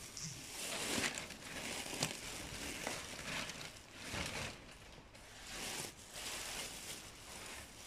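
Irregular crackling rustles and a few sharp clicks of wood-shaving bedding as a long-haired guinea pig moves about its cage and noses into its food bowl.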